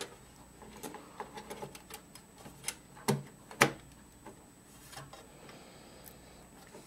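Scattered small clicks and taps of metal and plastic as a FireWire expansion card and its bracket are seated in a slimline PC case. A few sharper clicks come near the middle.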